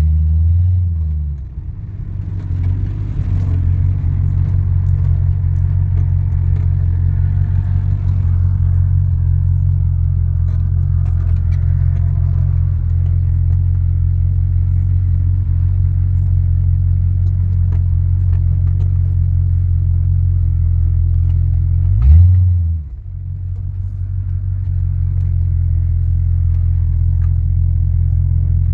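1972 Pontiac Grand Prix's V8 engine running while the car is driven, a steady low rumble heard from inside the cabin. Right at the start and again about 22 seconds in, the engine note rises briefly and then drops away sharply. After each drop it builds back up over a few seconds.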